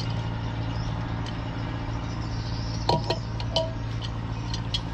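Metal tools and engine parts clink against each other a few times about three seconds in, with short metallic rings. A steady low hum runs underneath.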